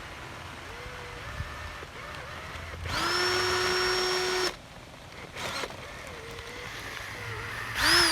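Small electric motor of a homemade boat propeller drive running: it spins up sharply, runs at a steady high whine for about a second and a half and stops, then starts again near the end with a wavering pitch.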